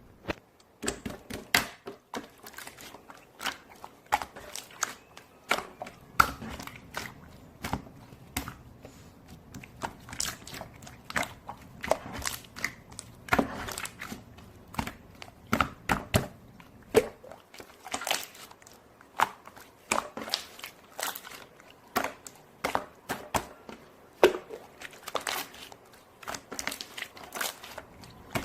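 Irregular crinkling and crunching, heard as a string of sharp clicks and rustles, some much louder than others.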